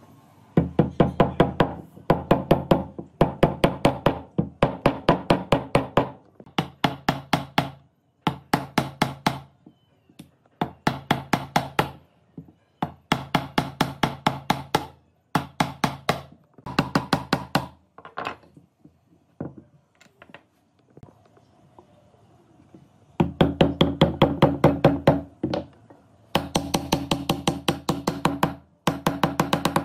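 Wooden mallet knocking a square pine table-leg tenon down into a mortise in a thick round wooden block. The blows come quickly, several a second, in bursts of one to two seconds with short pauses, and each knock rings briefly with a hollow tone.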